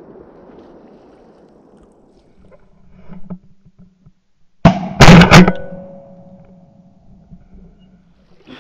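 A single shotgun blast about five seconds in, very loud and clipped, with a ringing tail that fades over the next two seconds. A few small knocks come just before it.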